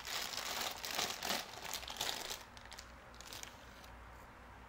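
Clear plastic packaging bags crinkling as they are handled. The crinkling is strongest for about the first two and a half seconds, then dies down to faint rustles.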